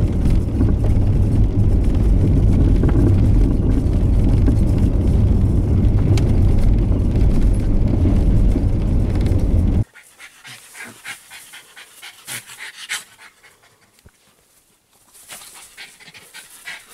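Steady low rumble of a vehicle driving along a wet track, heard from inside the cabin, cutting off suddenly about ten seconds in. After it comes a dog panting in short, broken bursts.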